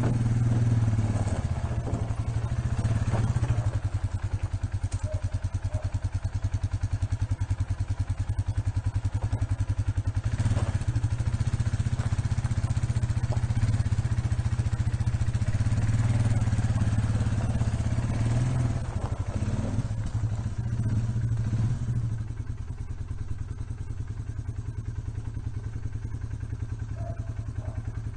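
4x4 ATV quad engine running as it pulls a small wooden utility trailer, a steady low-pitched putter with a few clunks. About three-quarters of the way through it gets quieter.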